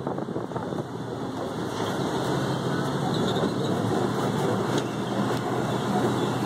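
Open-sided safari ride truck running as it drives along, a steady engine and road rumble that grows a little louder a second or two in.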